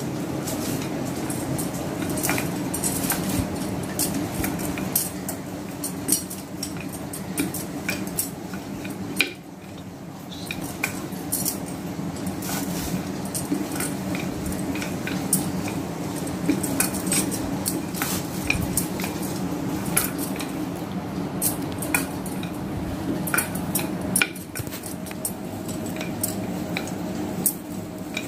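Rolling pin working a large sheet of momo dough thin on a tiled counter: repeated rolling strokes with many scattered light clicks and knocks, over a steady low hum.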